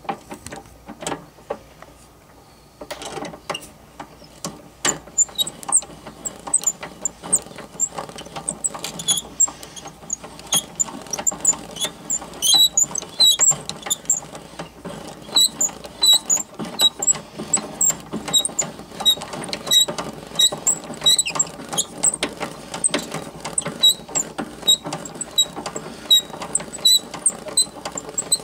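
Hand-cranked Mutoscope running its reel of photo cards: a fast patter of clicks as the cards flick past the stop, with short high squeaks repeating at a steady pace. The clicking is sparse for the first few seconds, then settles into a dense, even run.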